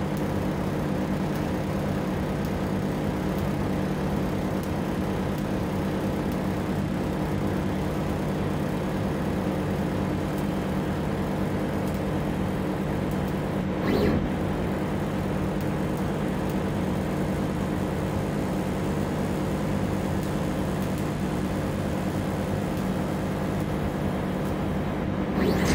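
20 W fiber laser engraver running while it marks a stainless steel knob on its rotary chuck: a steady machine hum with several steady low tones, and a brief louder swell about halfway through.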